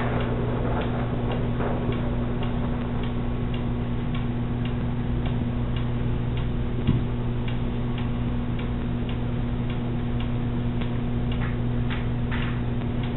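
Steady mechanical ticking, about three ticks a second, over a constant low hum, with one soft thump about seven seconds in.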